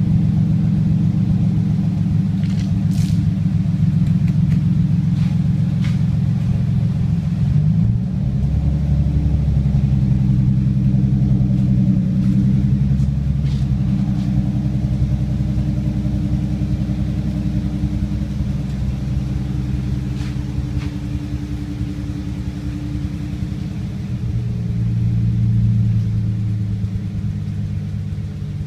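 Car engine running with a steady low drone. Its pitch shifts about eight seconds in, and it swells briefly near the end.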